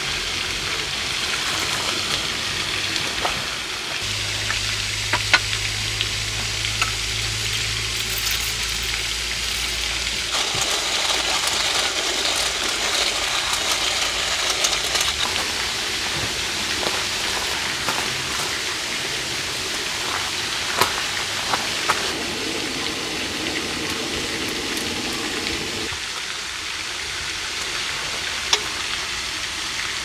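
Food sizzling in a hot pan, a steady crackling hiss with scattered light clicks of utensils. A low hum comes in about four seconds in and stops about six seconds later.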